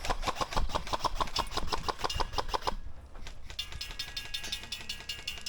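Airsoft gun firing in rapid strings of shots, about eight clicks a second, with a short break about three seconds in before it fires again with a steady whine under the shots.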